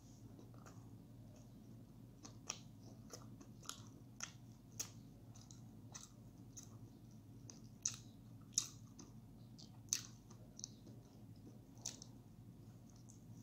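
A person chewing food close to the microphone, with irregular sharp wet mouth clicks, about a dozen of them, over a faint steady hum.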